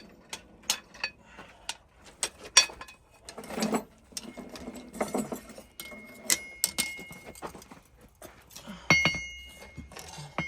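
Steel clinking and clanking as blacksmith's tongs and metal pieces are handled: irregular sharp knocks, with two strikes about six and nine seconds in that leave a high metallic ring.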